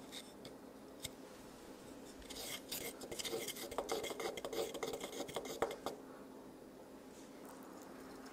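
Metal spoon stirring and scraping a sesame-seed dipping sauce in a small wooden dish: a run of light clinks and scrapes lasting about three and a half seconds, starting a little after two seconds in.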